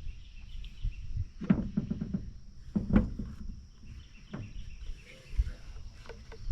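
Steady high insect trilling, with several irregular knocks and clatters of objects being handled.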